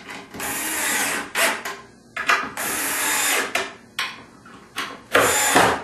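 Power drill driving screws into pine boards in three runs of about a second each, with short pauses and a few clicks between.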